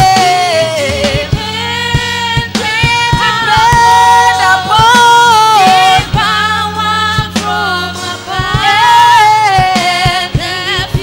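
Gospel music: a sung melody over a steady bass line and drum beats.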